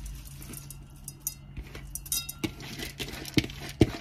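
Washed, drained rice and lentils tipped from a plastic bowl into a rice cooker's metal inner pot: soft slides of wet grain and a few sharp knocks, the loudest near the end, over a steady low hum.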